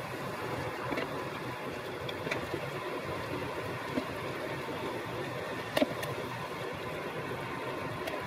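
Chicken pieces sizzling in melted margarine in a frying pan: a steady sizzle with a few sharp pops of spattering fat, the loudest a quick pair about six seconds in.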